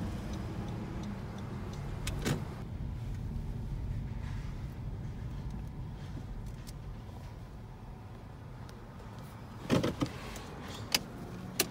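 Steady low rumble inside a car's cabin as it creeps along and stops, with a click about two seconds in and a handful of sharp knocks and clunks near the end.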